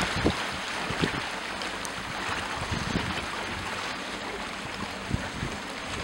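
Storm wind buffeting the microphone in irregular low gusts, over a steady rush of wind and choppy lake water.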